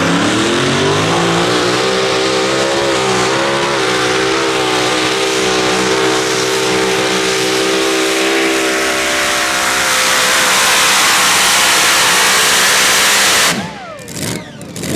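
Tractor-pulling machine's engine at full throttle, pitch climbing over the first couple of seconds and then holding steady and loud. About a second and a half before the end it cuts off suddenly.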